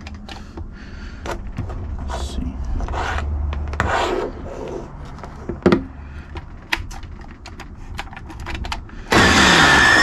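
Clicks and rubbing as fingers work the push-button panel of a Hamilton Beach blender. About nine seconds in, the blender's motor starts on its highest setting with the jar empty: a loud, sudden start with a whine that rises as it spins up.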